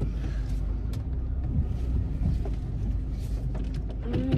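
Steady low rumble of a Honda car heard from inside the cabin while it is being driven: engine and road noise with a faint steady hum.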